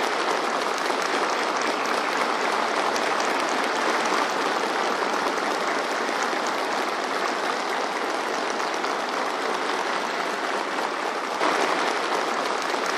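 Crowd applauding in a long, steady round of clapping.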